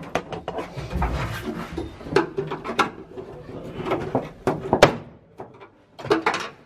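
Irregular knocks, clunks and clicks of hand tools and parts being worked on a stripped car body, several sharp knocks standing out, with a brief lull near the end.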